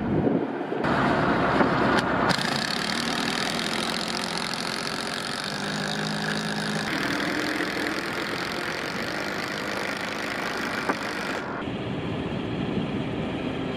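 Truck engine running steadily, from the crane truck lifting the wall panels. The sound changes abruptly a few times.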